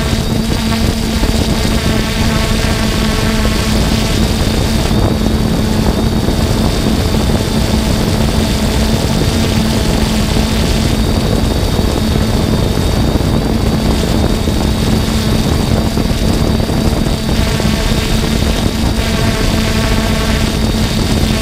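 3DR Solo quadcopter's electric motors and propellers in flight, heard from the camera on the drone itself. A loud, steady hum holding one pitch sits over a rough rushing noise.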